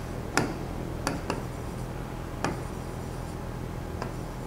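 About five sharp, irregularly spaced clicks or taps over a faint steady hum.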